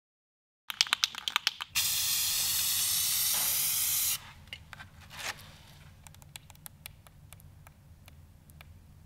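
Aerosol spray paint can: a quick rattle of clicks, then a steady hiss of spraying for a little over two seconds that cuts off suddenly, and a short second puff about a second later. Faint scattered ticks follow.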